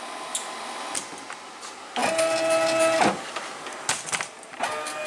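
NEMA 23 stepper motors of a CNC-converted Sieg X2 mini mill, jogging the machine by hand control. A steady pitched whine starts abruptly about two seconds in and stops about a second later, then starts again near the end.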